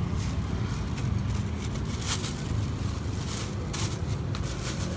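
Steady low rumble of outdoor street noise, with a few short sharp clicks and taps at irregular spacing.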